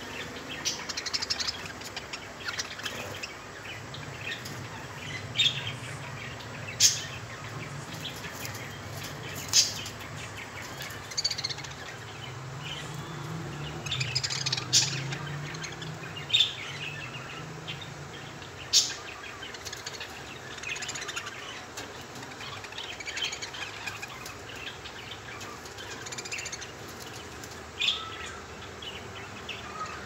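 Caged pet parrots, a cockatiel and a budgerigar, chirping in short scattered calls, with a few louder, sharp chirps standing out.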